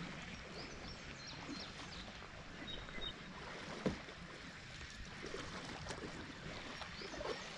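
Quiet river ambience heard from a small boat: a faint, even wash of water against the hull. A soft knock comes about four seconds in, and a few brief high chirps are scattered through.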